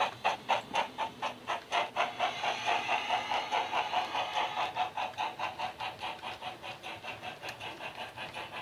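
Model steam locomotive sound from the DCC sound decoder in a Hornby King, playing a GWR Manor sound file through twin speakers: steady exhaust chuffs about four a second over a hiss of steam. The beats fade over the second half as the train runs away past the coaches.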